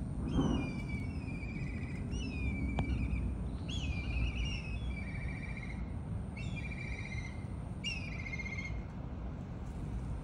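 A songbird sings five short phrases a second or two apart, each a quick trill falling in pitch, over a steady low outdoor rumble. A brief low sound comes near the very start.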